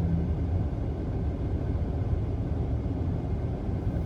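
Steady low rumble of a car's engine and road noise heard from inside the cabin, in slow-moving traffic.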